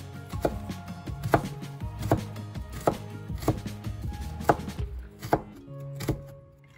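Chef's knife chopping diced carrot on a wooden cutting board: about eight sharp knocks of the blade on the board, a little under one a second, over soft background music.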